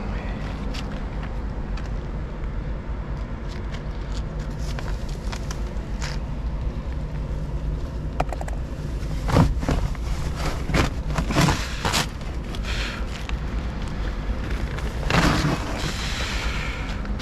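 Steady low machine hum, with a cluster of knocks and clatters about nine to twelve seconds in and another burst of clatter about fifteen seconds in.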